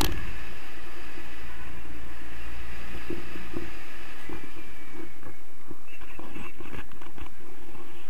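Steady rush of airflow buffeting a camera microphone on a paraglider in flight, with a low rumble that eases about halfway through. A sharp click comes right at the start.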